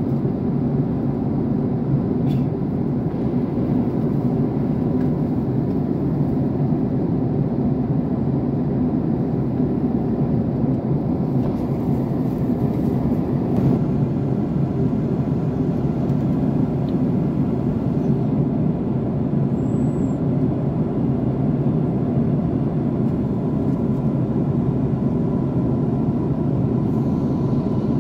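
Steady cabin roar of a Boeing 767-400ER airliner in flight, heard from a window seat: engine and airflow noise, low and unchanging.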